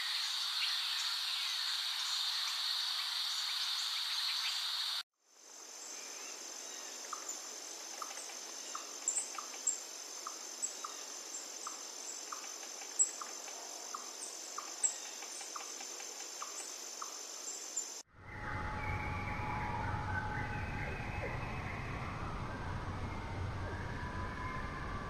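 Rainforest ambience, mostly steady high insect buzzing. It cuts abruptly twice: first to a higher steady drone with a regular ticking at about two a second, then about 18 seconds in to lower wavering calls over a low rumble.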